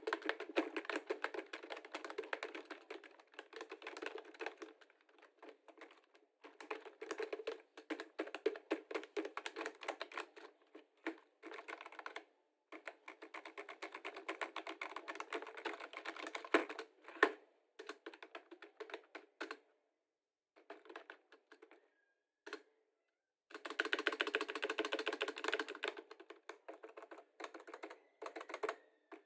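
Fast typing on a computer keyboard: rapid key clicks in runs of a few seconds with short pauses between them. About two-thirds of the way in there is a gap of a couple of seconds with only a few keystrokes, then another dense run of typing.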